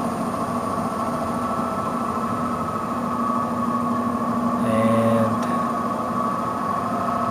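Failing furnace blower motor running with a steady hum and whine, running slow on its own: the sound of a very bad blower. The sound briefly gets a little louder about five seconds in.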